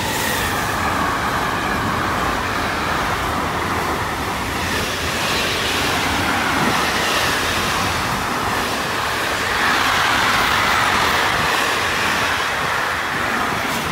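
A Bombardier TRAXX E483 electric locomotive passes at speed, followed by a long intermodal freight train of container wagons rolling by. It makes a steady, loud rush of wheels on rail, with a ringing hiss that rises and falls.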